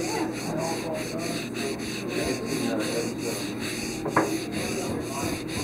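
Repeated scraping and rubbing as the ring grooves of a steam engine's low-pressure piston are scraped clean, with one sharp knock about four seconds in.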